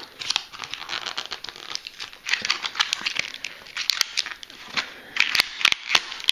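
Stiff plastic packaging crinkling and crackling as it is pulled and worked apart by hand, with a rapid run of sharp snaps and crackles.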